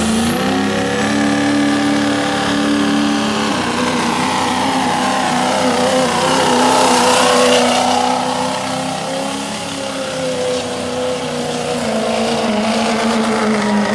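A 2008 Ford 6.4L Power Stroke V8 twin-turbo diesel pickup running hard under load in a sled pull. A high turbo whine climbs in the first second and then holds over the steady engine note, and the pitch dips and recovers about halfway through.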